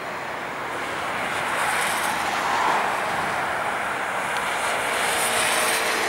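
Boeing 737-800's twin CFM56-7B turbofan engines on landing approach. The jet noise grows louder as the airliner comes closer, peaking about two and a half seconds in, then holds steady.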